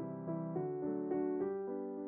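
Background piano music: a gentle melody of struck notes and chords, each note dying away before the next.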